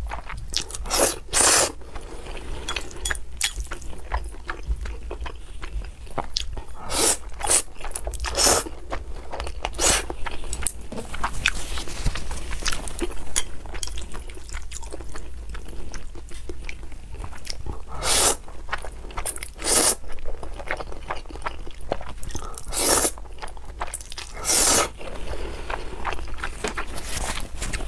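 A person eating saucy black bean noodles close to the microphone: wet slurping and chewing, with a loud, short slurp every few seconds.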